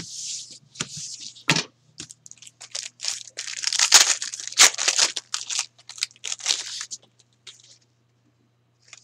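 A hockey-card pack's wrapper being torn open and crinkled by hand: a run of crackly tearing and crinkling noises, loudest about four seconds in, stopping a couple of seconds before the end.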